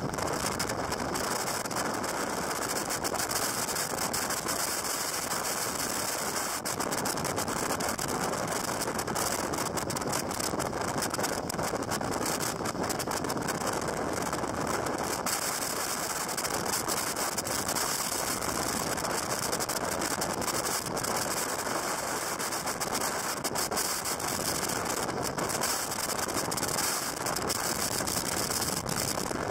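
Jet boat running at speed, heard from on board: a steady rush of engine, water and wind noise.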